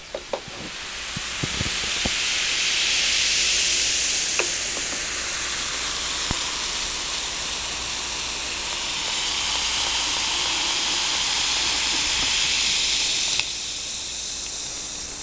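Baking soda and vinegar fizzing as the mixture foams up and over the cup: a steady hiss of carbon dioxide bubbles bursting. It grows louder over the first three seconds, holds, then drops quieter a little before the end.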